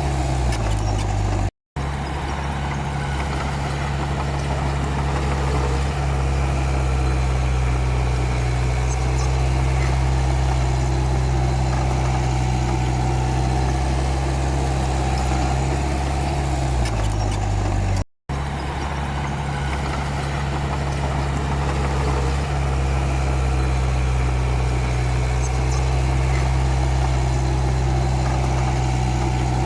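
Komatsu D31P bulldozer's diesel engine running steadily. Its pitch sags twice, about a second in and again about seventeen seconds in, and each sag ends in a brief break in the sound.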